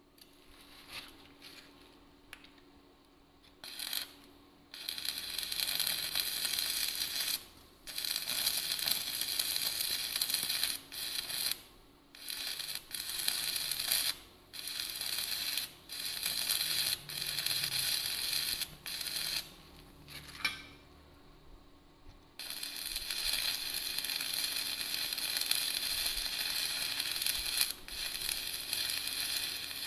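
Electric arc welding on a vehicle chassis: a crackling, frying hiss in runs of a few seconds, stopping and starting about a dozen times, with a longer pause about two-thirds of the way through.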